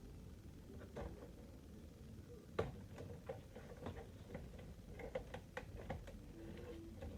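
Scattered light clicks and taps of a screwdriver and screws on the plastic housing of a robot vacuum being unscrewed, with one sharper tap about two and a half seconds in and a quicker run of clicks near the end.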